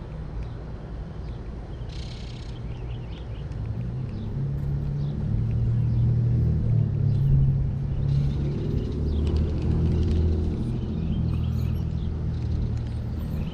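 A vehicle going by on a road: a low rumble that swells over a few seconds, is loudest in the middle and slowly fades.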